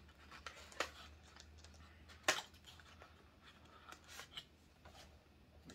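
Retail packaging of a phone case being opened and handled by hand: faint rustling with a few sharp clicks, the loudest about two seconds in.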